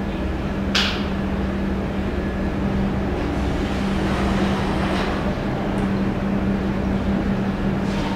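Protein skimmer pumps running on a test bench: a steady electric-motor hum at one constant pitch over a low rumble and the rush of water and air. A brief hiss comes about a second in.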